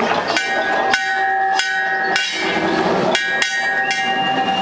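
Metal being struck about seven times, some hits in quick pairs, each one ringing on with clear metallic tones.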